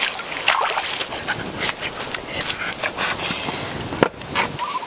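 Shallow stream water splashing and sloshing around someone wading, in irregular bursts, with a single sharp click about four seconds in.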